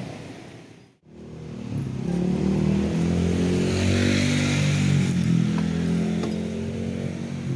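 Small motorcycle engine running as the bike rides slowly along, starting after a brief cut about a second in and holding a fairly steady pitch.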